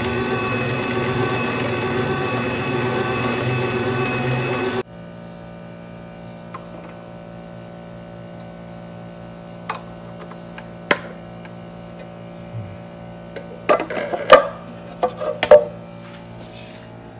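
Slow juicer's motor running with a steady hum while the auger presses apple, cutting off abruptly about five seconds in. Then a few sharp plastic clicks and knocks as the juice spout cap is flipped open and the jug is handled, busiest near the end.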